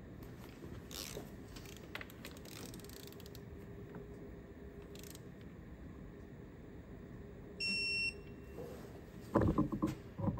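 Hand tools working on the engine's idler pulley fastenings: scattered light metal clicks and rattles, a single short electronic beep about eight seconds in, then a burst of loud, rapid metallic clicking near the end.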